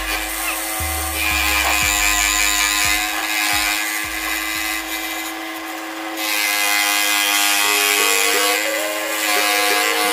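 Electric scroll saw running, its reciprocating blade cutting through a board along a paper pattern, with a steady motor hum.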